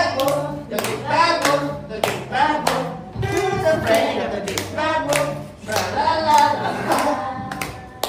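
Song with voices singing and a steady bass line, with hands clapping along in time about two to three claps a second.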